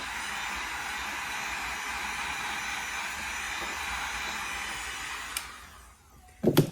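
Heat gun blowing steadily, then switched off and winding down about five and a half seconds in, followed by a single loud knock near the end.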